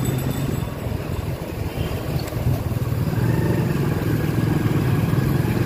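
Motorcycle engine running steadily under way, heard from the rider's own bike, with road noise.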